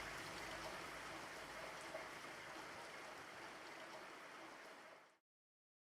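Steady rain, an even hiss that fades slowly and then cuts off abruptly about five seconds in.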